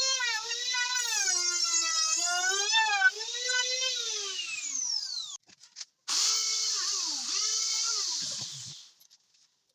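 Handheld electric power tool, a drill by the sound, whining with its pitch dipping and recovering under load. About five seconds in it is released and winds down in a falling whine. It starts again a second later, bogs down briefly under load, and stops shortly before the end.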